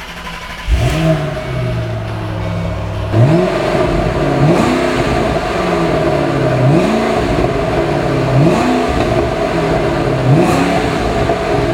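Ford Shelby GT500's supercharged 5.4-litre V8 starting up about a second in, flaring briefly and settling to idle. It is then revved about five times in short throttle blips, each rising in pitch and dropping back to idle.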